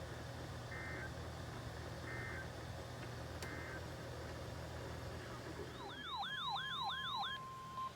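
Electronic alert tones over a steady hiss and hum: three short beeps, then about two seconds before the end a quick warbling siren-like tone of about five falling sweeps that settles into a steady beep.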